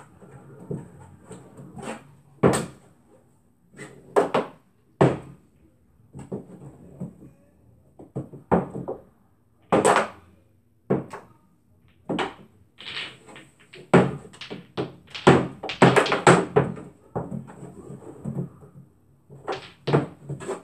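Billiard balls on a small tabletop pool table, rolled by hand, clacking together and knocking against the rails and into the pockets. It is an irregular string of sharp knocks, sparse at first and coming thick and fast in the second half.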